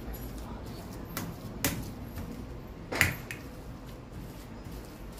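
Steel spoon mashing boiled potatoes in a stainless steel plate, with about four sharp clinks of spoon on plate, the loudest about three seconds in.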